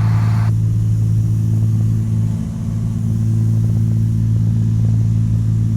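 Cessna 182's single piston engine and propeller droning steadily in cruise flight, a constant low hum with a few steady pitches. A faint hiss over the drone cuts out about half a second in.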